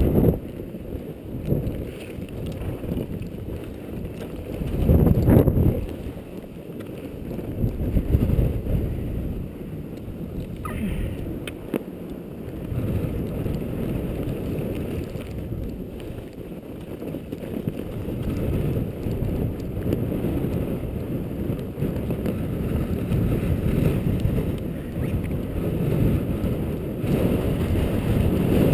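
Wind buffeting a moving action camera's microphone during a fast descent over snow: a low, uneven rumble that swells in gusts, loudest about five seconds in and rising again near the end.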